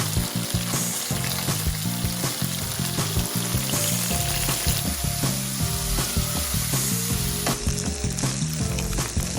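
Food frying in a hot pan, with a steady sizzle and crackle, under background music with a repeating melody.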